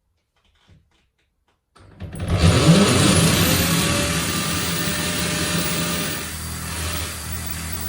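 Electric drill starting about two seconds in, its pitch rising as it spins up, then running steadily while boring a 3.5 mm pilot hole into the edge of a wooden door; it runs a little quieter in the last couple of seconds.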